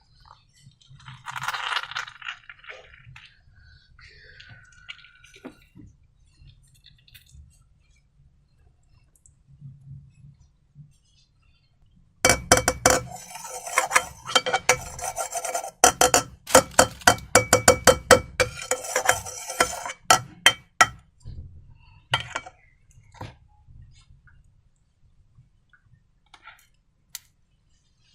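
Rapid, dense clicking and clinking of hard objects for about nine seconds, starting about twelve seconds in, with a few scattered clicks and soft rustling around it.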